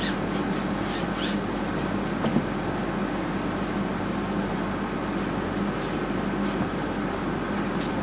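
Steady low room hum, with two faint swishes in the first second and a half as a hand and rag rub oil paint on the canvas.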